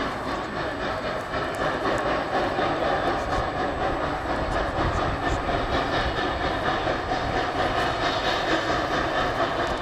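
Geared steam locomotive working up a grade, a rapid beat of exhaust over the rolling and clatter of the wooden passenger cars, growing a little louder as the train approaches.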